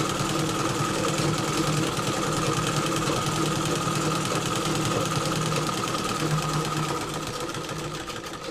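Domestic sewing machine running steadily at speed, stitching a long straight seam; it winds down near the end.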